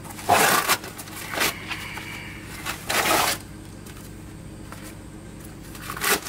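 Cardboard packaging being ripped off a box of glazed ceramic floor tiles. There are several short tearing rips in the first three seconds and another just before the end.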